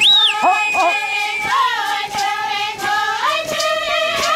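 A group of Indigenous women singing a traditional chant together, holding long, steady high notes that step down to a lower held note about three seconds in. A short, sharp, rising high note sounds right at the start.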